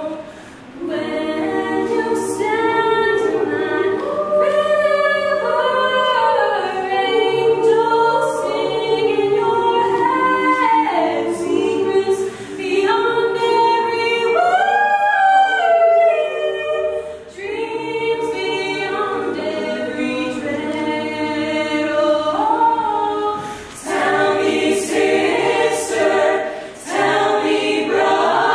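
Small youth choir of mixed voices singing a cappella in close harmony, in held, swelling chords, with a brief breath pause about a second in.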